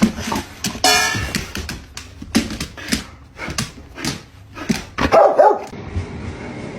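A dog barking repeatedly, a quick run of short barks that stops about five and a half seconds in.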